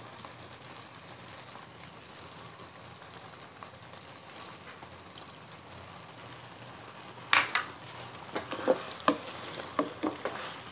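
Tofu sisig in a creamy sauce sizzling gently in a pan. From about seven seconds in, a wooden spatula scrapes and knocks against the pan in quick, uneven strokes as the mixture is stirred.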